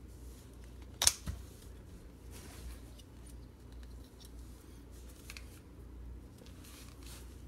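Handling noise from small objects: a sharp click about a second in, a lighter click just after it, then faint rustling and light ticks over a steady low hum.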